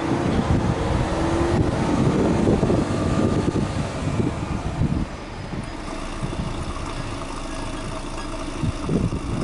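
Exhaust note of a Subaru Legacy B4 2.0GT spec.B's turbocharged 2.0-litre flat-four (boxer), heard at the twin tailpipes. The engine is held at raised revs with a rising pitch, then drops back about five seconds in to a steady idle.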